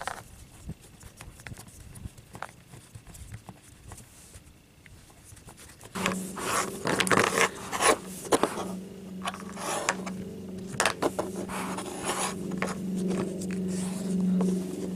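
Hands handling solar panel cables at a plastic roof cable entry gland: scraping, rubbing and sharp clicks of cable and plastic. About six seconds in, a steady low hum starts and carries on under the handling.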